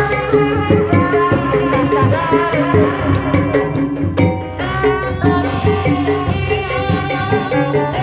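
Lively Sundanese folk music with a singing voice over drums and a fast, steady beat of high percussion ticks, typical of a kuda renggong procession band.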